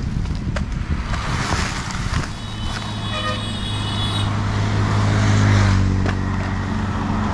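Street traffic: a motor vehicle engine running close by with a steady low hum that grows louder midway. A high steady tone, like a horn, sounds for about two seconds, starting around two and a half seconds in.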